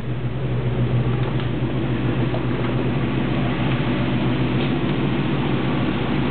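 The 455 cubic-inch V8 of a 1976 Oldsmobile Ninety-Eight Regency idling steadily, an even low hum with no change in speed.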